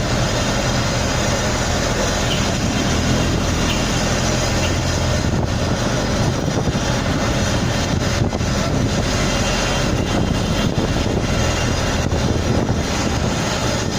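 Engine running steadily, with a continuous hum and a rushing noise over it.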